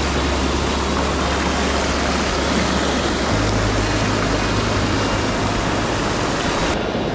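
Rushing mountain-stream water, a steady loud hiss that thins abruptly near the end, with background music's held bass notes underneath changing every few seconds.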